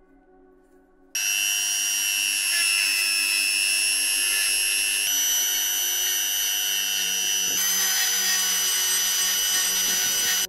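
Handheld rotary tool whining steadily as its small bit grinds rust off a cast metal buffalo figure. It starts about a second in, and its pitch shifts abruptly twice.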